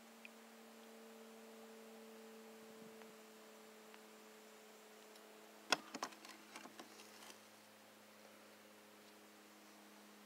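Faint steady hum of a few level tones, broken about six seconds in by a quick run of handling clicks and knocks in the kayak, the first knock the loudest.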